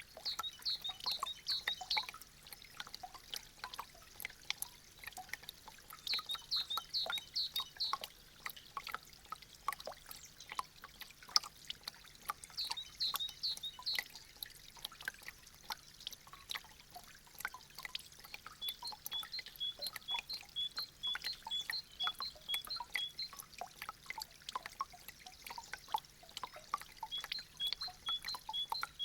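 Meltwater dripping and trickling from melting icicles: a dense, irregular patter of drops. High chirping notes come in short runs, then as an even series of about two a second.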